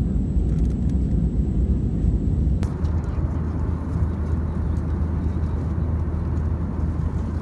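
Steady low rumble of a moving vehicle, with a constant low hum underneath; the sound shifts about two and a half seconds in, picking up more hiss.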